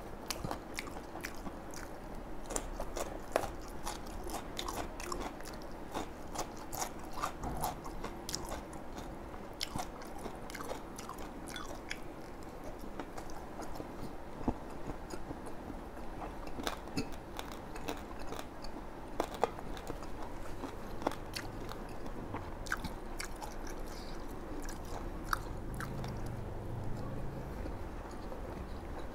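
Close-miked chewing and biting of fried tofu and fried sausage pieces from a bún đậu mắm tôm platter, with many small sharp crackles throughout.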